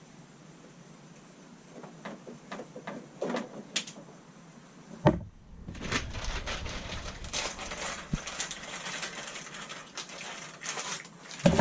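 Hand-work noises while wiring a switch: scattered small clicks, a sharp knock about five seconds in, then several seconds of steady rustling and clicking from handling the wires and switch, with another knock near the end.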